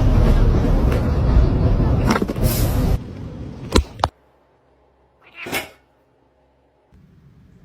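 About three seconds of loud rustling and clattering, a sharp knock, then a short cat call about five and a half seconds in.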